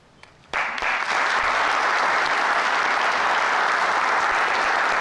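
Audience applauding, breaking out suddenly about half a second in and continuing steadily.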